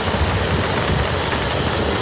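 Campfire crackling over the steady rush of a flowing river, with scattered sharp pops from the fire.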